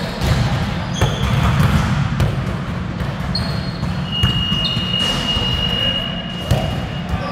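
Several basketballs bouncing on a tiled gym court floor in an uneven overlapping patter, with sharp sneaker squeaks; one long squeak runs for about two seconds from about four seconds in.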